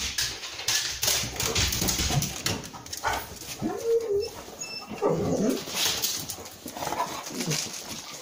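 Dogs whining, a few short rising-and-falling whines, over scattered rustles and knocks.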